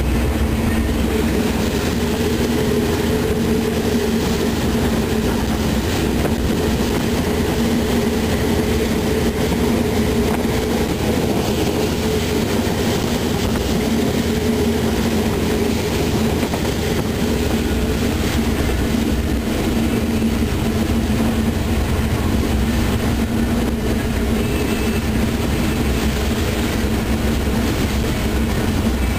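Diesel locomotive running steadily under way, heard from inside its cab: a constant engine drone over the rumble of the wheels on the rails.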